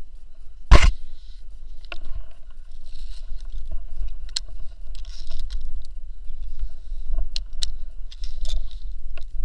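Climbing rope being pulled through a metal rope ascender and pulley in repeated strokes, with sharp clicks of the hardware and a single loud knock about a second in.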